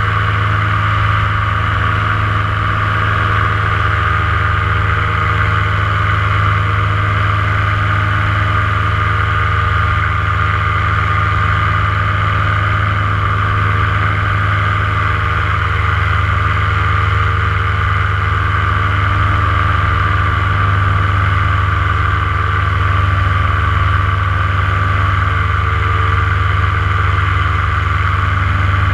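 Paramotor engine and propeller running steadily in flight, at an even, unchanging pitch.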